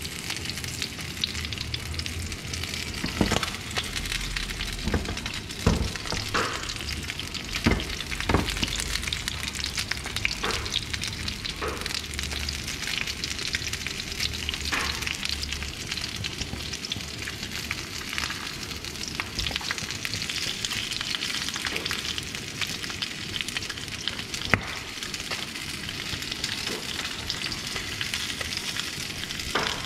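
Chunks of fish frying in hot oil in a pan: a steady sizzling hiss with scattered sharp pops and crackles.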